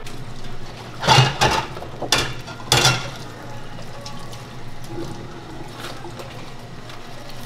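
Whipped cream squeezed from a piping bag onto a waffle, with about four short, wet squirts in the first three seconds as the dollops are piped. A steady low hum runs underneath.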